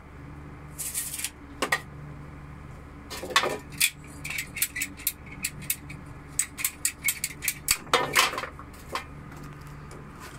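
Plastic PPR pipe fittings clattering against each other and the pan they lie in as they are rummaged through and picked out: irregular clusters of sharp clicks and knocks, over a steady low hum.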